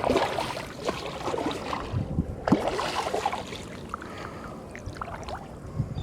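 Water lapping and splashing against a fishing paddleboard, with scattered light knocks on the board.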